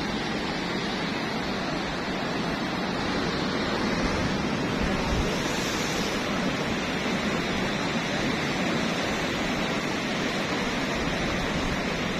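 Ocean surf breaking along a sandy beach: a steady, even rushing wash with no single wave crash standing out.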